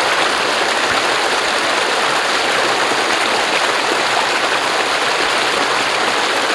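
Steady, loud rush of water from a waterfall stream tumbling over boulders.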